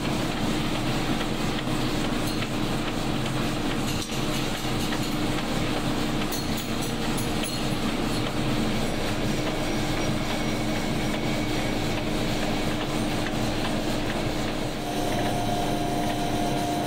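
Steady clattering noise of factory machinery running, with a constant hum; a second, higher tone joins near the end.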